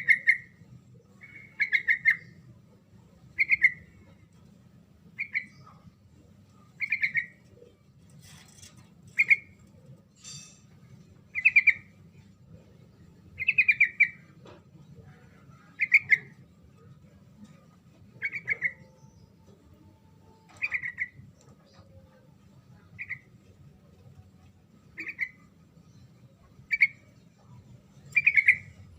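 Yellow-vented bulbul (trucuk) giving short, lively chattering phrases, each a quick run of repeated notes, about every two seconds. A faint steady low hum runs underneath.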